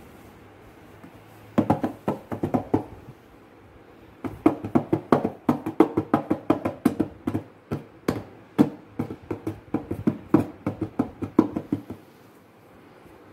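A toddler's hands slapping a cardboard formula box like a tabla: a short run of slaps about a second and a half in, then rapid slaps, several a second, from about four seconds in until near the end.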